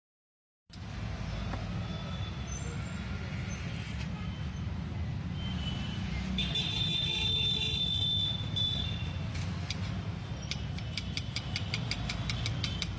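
After a moment of silence, a steady low rumble of street background noise, with a high squeal lasting about two seconds midway. Near the end, quick, even knife strokes on a cutting board begin, about four a second, as a peeled potato is cut.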